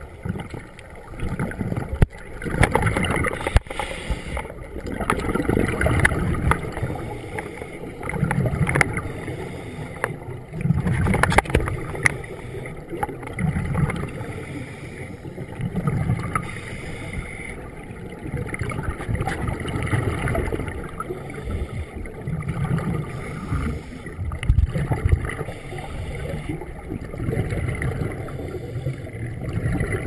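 Scuba regulator breathing heard underwater: exhaled bubbles rumble out in bursts every two to three seconds, with a few sharp clicks along the way.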